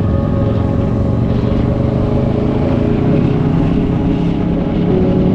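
Motorcycle engine running steadily on the move.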